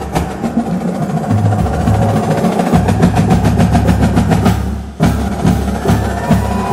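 Dance-mix music with a heavy drum beat and deep bass. Just before five seconds in, the track thins out and dips for an instant, then the beat drops back in hard.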